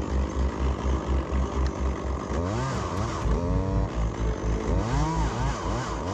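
Chainsaw revving up and down in quick throttle bursts, about a third of the way in and again near the end, over a steady low pulsing rumble.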